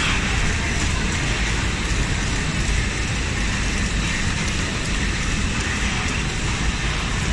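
High-speed flow-wrapping (pillow pack) packing line running: a steady, even machine noise with a deep rumble underneath.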